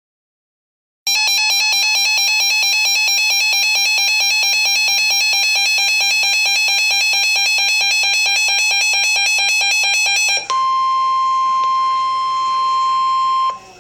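Weather radio emergency alert tones for a flash flood warning. A rapid, evenly pulsing electronic alarm sounds for about nine seconds, then a single steady tone, the NOAA Weather Radio warning alarm tone, holds for about three seconds and cuts off suddenly.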